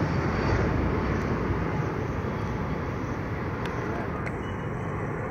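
Aircraft engine noise, a steady rushing that slowly fades as the plane moves away.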